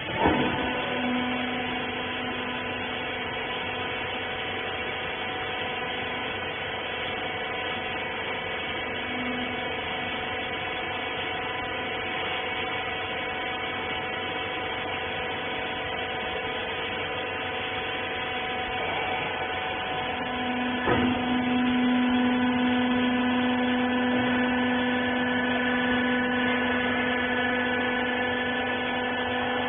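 Hydraulic rag baler's pump and motor running with a steady, many-pitched hum. A clunk comes at the start and another about twenty seconds in, after which the low part of the hum grows louder.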